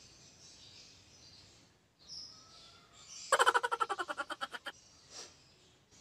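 A small animal's chirping call: a rapid run of about fifteen chirps lasting about a second and a half, loudest at first and fading, over faint high chirping in the background. A single short chirp comes shortly before the run.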